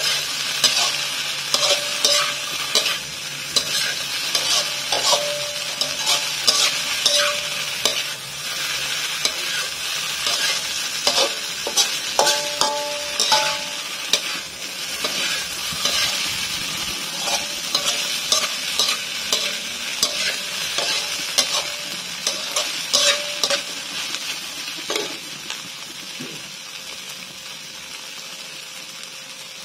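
Fried tofu sizzling in a frying pan while it is stirred and scraped with a cooking utensil, with frequent clicks and taps of metal on the pan and a few short rings. The sizzle and stirring get quieter near the end.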